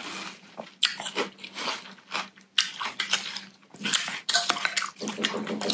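Close-miked chewing of Korean cold noodles (naengmyeon) in iced broth: irregular crunchy bites and mouth noises.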